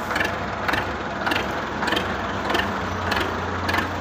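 Belarus tractor's diesel engine running steadily with a low drone while hitched to a fully loaded trolley, with a sharp knock about twice a second.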